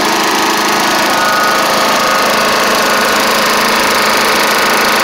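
Tecumseh single-cylinder engine of a Snapper Hi Vac push mower running steadily at a constant, loud level.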